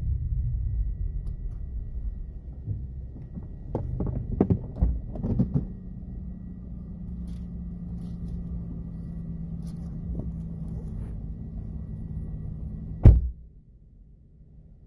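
Inside a car: low rumble as the car rolls to a stop, a few clicks and knocks, then a steady low hum of the idling car. About thirteen seconds in comes a single loud thunk of a car door shutting, after which it is much quieter.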